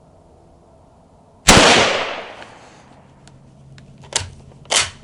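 A single rifle shot from a Yugoslavian M48 Mauser bolt-action rifle in 8mm Mauser, a sharp loud report about a second and a half in that rings out and fades over about a second. Two short sharp clicks follow near the end.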